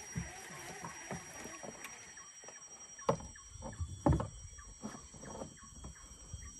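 A few scattered knocks and taps from handling fishing gear in a small boat, the loudest about three and four seconds in, over a faint steady background.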